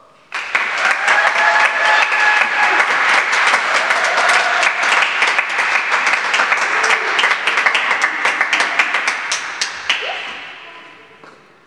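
Audience applauding. It starts suddenly and dies away near the end.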